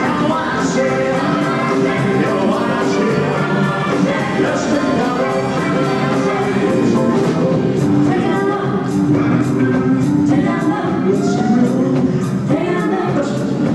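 Live rock and roll band playing, with singing.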